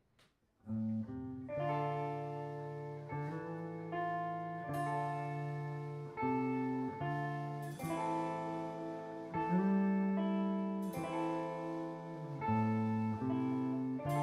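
A live band plays the slow opening of a song: sustained guitar chords that change every second or so, starting just under a second in.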